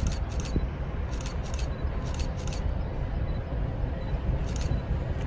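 Steady low rumble with sharp metallic clicks coming in pairs about a third of a second apart, three pairs and then one more near the end: typical of a slow-moving train's wheelsets clicking over a rail joint.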